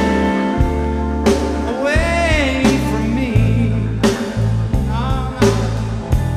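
Background music: a song with a singer over a steady beat and bass.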